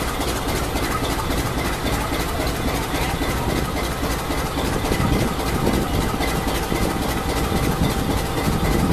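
Electric commuter train approaching slowly along the track: a steady rumble of wheels and running gear with a faint, thin steady whine, growing a little louder about halfway through.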